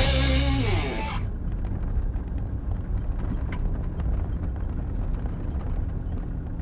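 A music track's final chord rings out and fades over about a second. Then comes the steady low rumble of an off-road 4x4 driving along a leaf-covered forest track, heard from inside the cab, with an occasional light tick.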